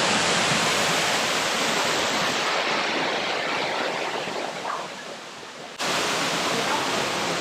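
Steady rushing noise with no pitch to it. It eases off a little past the middle, then cuts off suddenly about six seconds in to a second steady rush.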